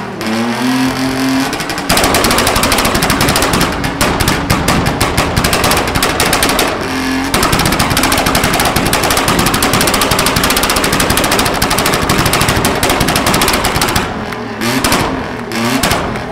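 Modified Mini stunt car spinning donuts: its engine revs up, then is held hard at high revs with a rapid stuttering pulse while the tyres squeal for most of the time, with a short break in the middle. Near the end it eases off to lighter, uneven revving.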